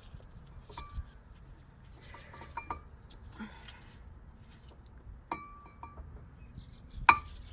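Light metal clinks, each ringing briefly, a handful of times with the loudest near the end, as steel-backed disc brake pads are knocked and seated into the caliper.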